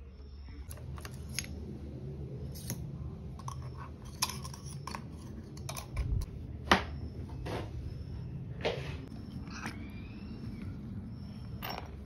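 Scattered clicks, knocks and crunchy rattles of plastic and metal pressure-washer pump parts being handled and taken apart by hand, over a low steady hum.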